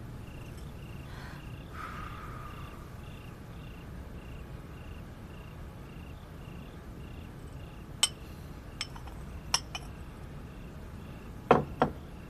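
Crickets chirping steadily, a short high chirp repeating under a quiet room ambience. A few light clinks of a porcelain spoon and bowl come a little past halfway, then two louder knocks near the end as the bowl is set down.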